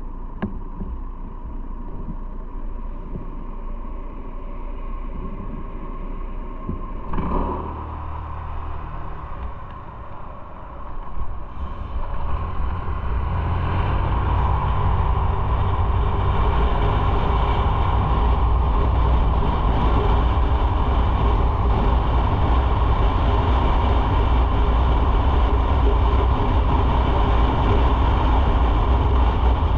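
Motorcycle engine running at a low, steady level, then louder and steady once the bike is under way in the second half.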